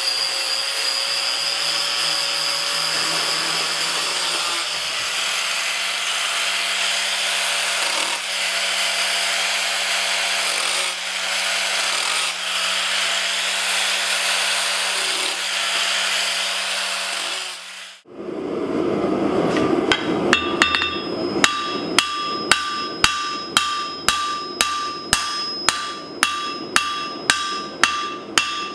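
Handheld angle grinder grinding steel pieces, a steady whine over gritty grinding. After a break it gives way to a hammer striking hot steel on an anvil in an even rhythm, about one and a half blows a second, each blow ringing.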